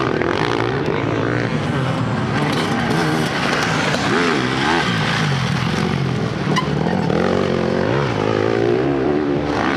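Several off-road racing motorcycles' engines revving, their pitch rising and falling over and over as riders open and close the throttle through the jumps and turns.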